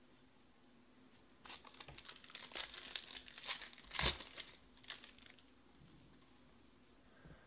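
Foil wrapper of a Topps Museum Collection card pack crinkling as it is torn open by hand, with a sharp rip about four seconds in.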